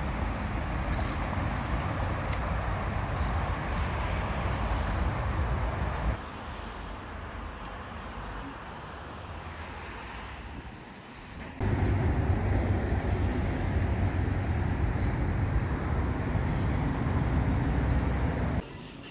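Steady low road-traffic or vehicle noise, broken by abrupt edits: it drops quieter about six seconds in, comes back louder near twelve seconds, and cuts off sharply just before the end.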